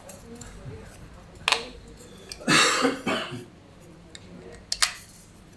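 A person coughs once, a loud rough burst about halfway through. Two sharp clicks come about a second and a half in and near the end.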